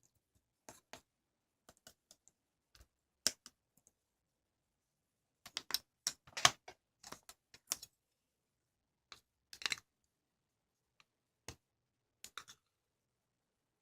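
Scattered light clicks and taps of small objects being handled, coming irregularly in short clusters with quiet gaps between, busiest in the middle.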